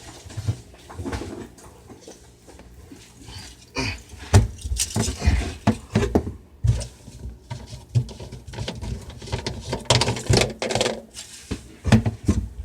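Irregular knocks, clicks and rustling of objects being handled and set down, louder in clusters about four seconds in and again around ten seconds.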